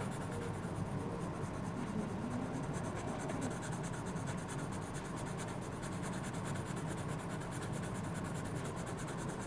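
Yellow coloured pencil shading on drawing-pad paper: a steady scratchy rubbing made of quick, repeated strokes.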